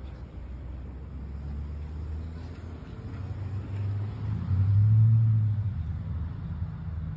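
A motor vehicle's engine rumbling low. It grows louder to a peak about five seconds in and then fades, as a car passing by on the street.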